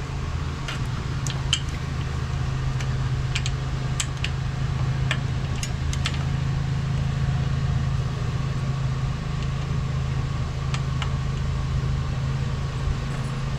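Steady low machine hum with a few faint, short clicks, the clicks from an Allen key turning the disc brake caliper's mounting bolts.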